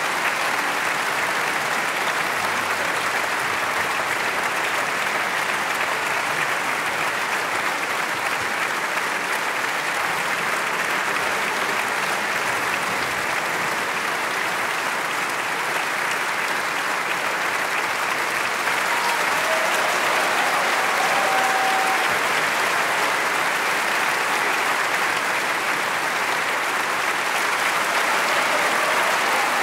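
Large theatre audience applauding steadily at a curtain call, growing a little louder about two-thirds of the way through.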